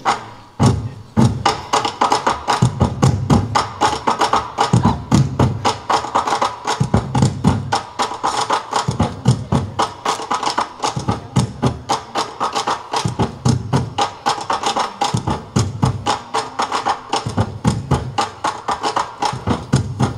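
Fast percussion music: a dense run of sharp, wood-block-like clicks over deep drum strokes that come in recurring clusters.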